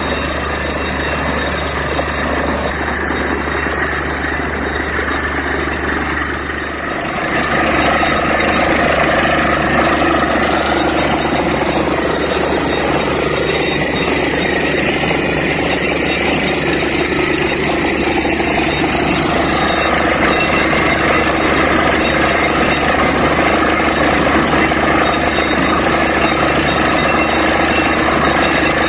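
Borewell drilling rig running loud and steady, its engine and drilling machinery in one continuous roar. About seven seconds in the sound shifts and grows louder and fuller, then holds steady.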